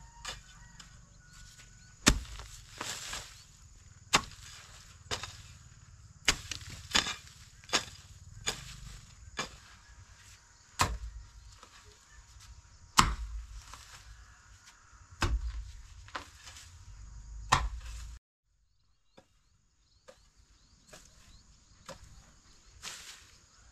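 Repeated sharp blows of a hand tool striking, one every second or two at an irregular pace, some with a dull thud underneath. They break off suddenly about 18 seconds in, and a few fainter knocks follow.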